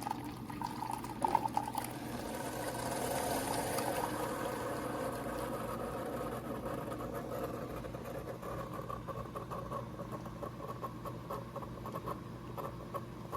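Keurig K-Supreme Smart single-serve coffee maker brewing: hot coffee streams and trickles into a mug as the machine runs, with a short knock about a second in.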